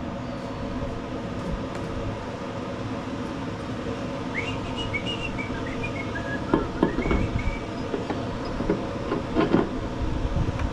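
Steady hum of a shop fan, with a few short whistled notes in the middle and some light knocks and clicks of hand tools on metal.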